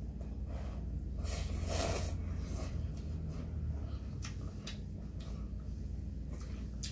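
Ramen noodles being slurped up, several noisy slurps, the longest lasting about half a second a little under two seconds in, with shorter sucking sounds through the rest.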